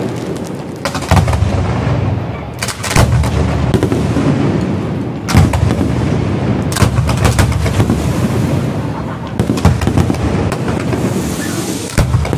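Aerial fireworks bursting in quick succession: sharp bangs and crackling reports over a continuous low rumble, with the loudest bangs coming every second or two.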